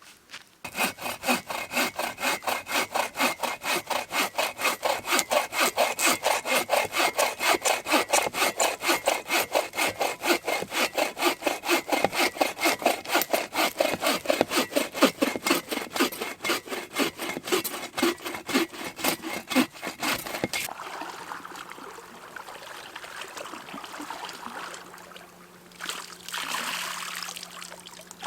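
A hand saw cutting through wood in quick, even back-and-forth strokes, about four a second, stopping about two-thirds of the way through.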